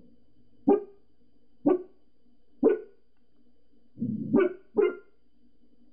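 Pembroke Welsh Corgi alert-barking at people outside next door: single sharp barks about a second apart, then a lower, longer bark running into two quick barks near the end.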